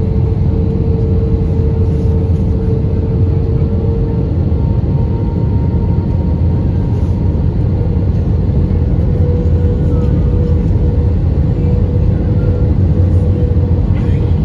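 Airbus A320 cabin noise during descent: a steady, loud roar of engines and rushing air, with a thin engine hum that fades a few seconds in and comes back slightly higher in pitch.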